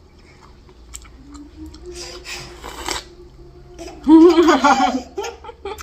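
A wet slurping sound of someone sucking the juice from a balut egg about two seconds in, then a loud burst of baby laughter about four seconds in.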